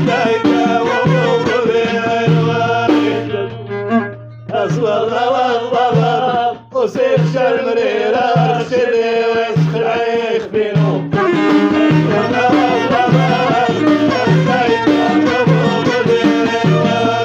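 Moroccan Middle Atlas folk music: a wavering violin melody over a steady low beat. The music drops out briefly about four seconds in and again near seven seconds.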